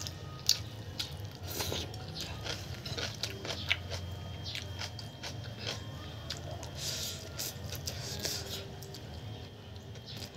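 A person eating Indomie instant noodles up close: chewing with wet mouth clicks, and short slurps as chopstick-loads of noodles go in.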